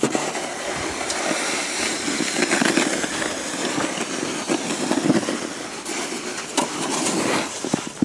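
Snow shovel blade scraping along pavement as it pushes through snow, a continuous rough scrape.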